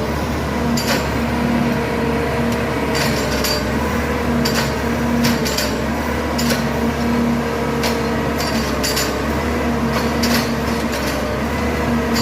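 Railroad track maintenance machine working, its engine running steadily under repeated sharp metallic clanks and knocks that come at irregular intervals.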